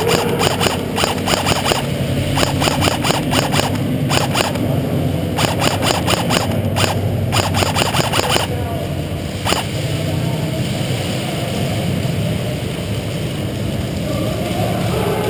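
Several bursts of rapid clicking fire from airsoft electric guns on full auto, each lasting about half a second to a second, then a single shot about two-thirds of the way in. A steady low hum runs underneath.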